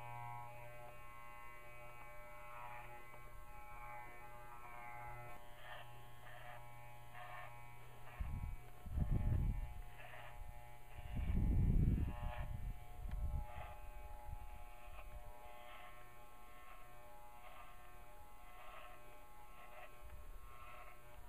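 Electric dog clippers buzzing steadily as they shave a dog's thick, heavy fur, the blades getting stopped up with hair. Twice, about eight and eleven seconds in, a low rumble rises louder than the buzz.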